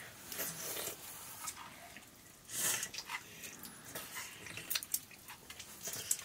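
People eating rice by hand from metal plates: scattered small clicks and scrapes of fingers working rice against the plates, with chewing, and a louder scraping rustle about two and a half seconds in.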